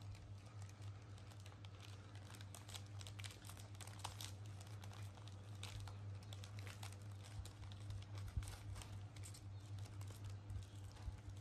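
A snack wrapper crinkling and tearing as it is opened by hand, a run of light irregular crackles, over a steady low hum.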